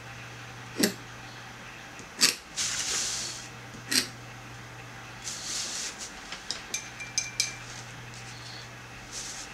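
Calligraphy pen scratching across paper in short strokes, between a few sharp clicks and light clinks. A steady low hum runs underneath.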